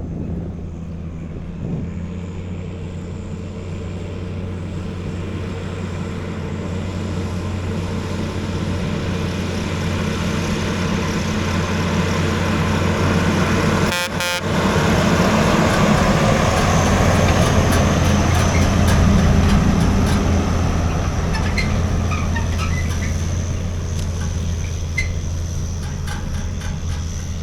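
Heavy truck engine running steadily under way, building in level through the middle, with a brief break in the sound about 14 seconds in.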